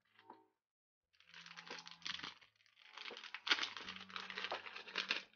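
Clear plastic sticker bag crinkling as it is handled and opened, in two stretches of rustling, the second longer.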